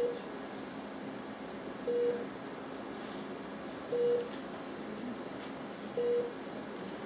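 A short, low electronic beep that repeats evenly every two seconds, four times, over a steady room hum.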